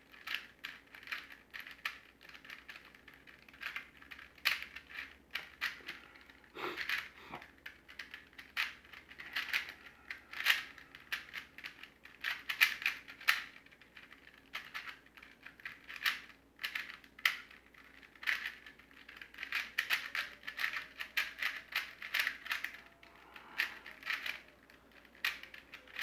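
Plastic clicking and clacking of a void cube being turned by hand, in quick runs of turns with short pauses between them, as the puzzle is solved.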